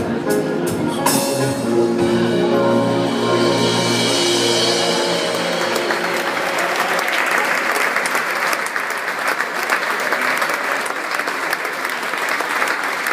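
A live band ends a song on a held chord with a few drum strikes, then the audience starts applauding about five seconds in.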